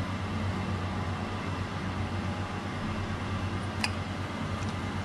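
Steady low machine hum, with one light click about four seconds in.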